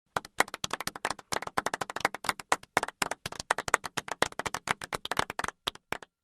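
Hand clapping: sharp, separate claps at a quick, uneven pace that stop suddenly near the end.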